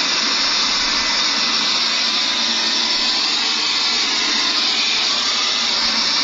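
Handheld cordless mini vacuum cleaner, converted into an air blower, running with a steady airy hiss that holds the same level throughout.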